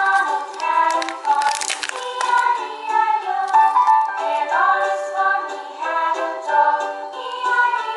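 Background music with a sung, high melody line, continuous and fairly loud, with a brief hiss about one and a half seconds in.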